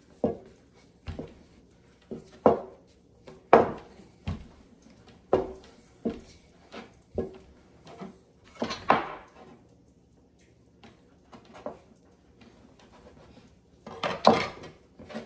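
A wooden rolling pin knocking and rolling on a floured wooden countertop as dough is rolled out, about one knock a second for nine seconds, then a pause. Near the end, a metal bench scraper scrapes and knocks against the wooden counter.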